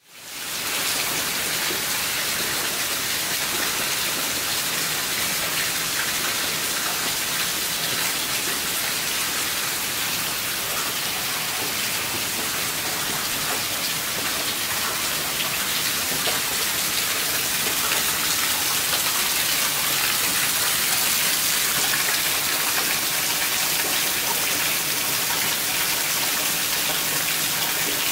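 Heavy storm rain falling steadily: a dense, even hiss of countless drops on the ground and foliage. It fades in over the first second.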